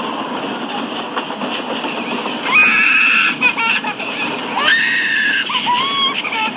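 A baby crying in several high wails, each rising at the start and then held, over the steady rumbling noise of a moving train.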